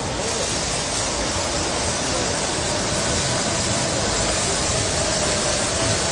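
Water spraying in a steady, unbroken hiss, with a faint steady hum underneath.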